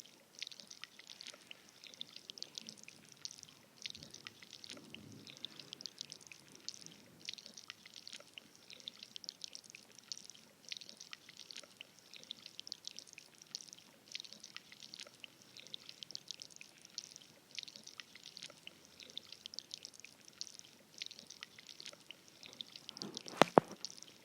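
Pouring in a candy maker: a dense, steady patter of fine ticks, with two sharp knocks near the end.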